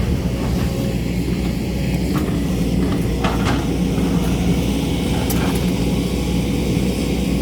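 JCB excavator's diesel engine running steadily under load, with a few short knocks and scrapes as the bucket works against rock.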